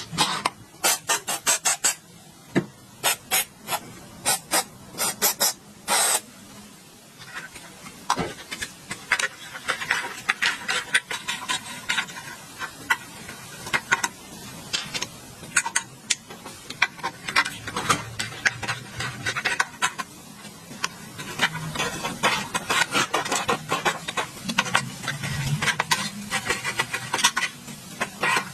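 Hand-tool work on an old, rusted water pump motor: irregular scraping and rasping with many short metallic clicks and knocks.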